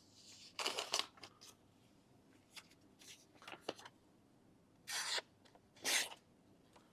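Handling of a Victorinox multi-tool pocket knife: a few short scraping rubs and light clicks as it is turned over and its parts are moved.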